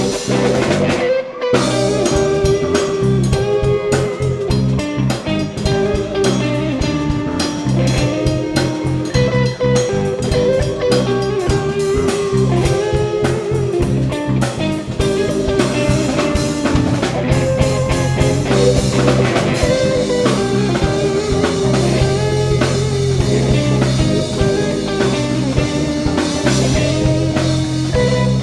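Live rock band playing an instrumental jam, heard straight from the soundboard: electric guitar leading over bass and drums. The music drops out for a moment about a second in.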